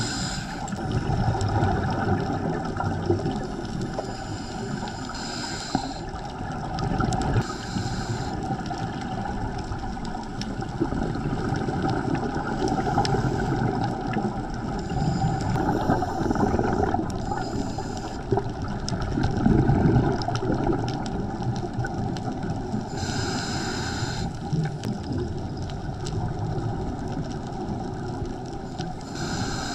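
Scuba regulator breathing heard underwater: a hiss on each inhale every few seconds, with a bubbling rumble from the exhaled air between breaths, over a steady hum.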